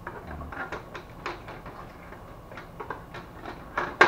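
Plastic clicks and rattles from an HP LaserJet 400 M401dn printer's rear door and panels being unlatched and pulled open by hand, with one sharp clack near the end.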